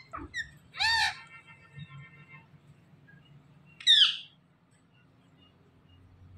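Indian ringneck parakeets calling: a few short chirps at the start, a loud arched squawk about a second in, and a sharp downward screech about four seconds in.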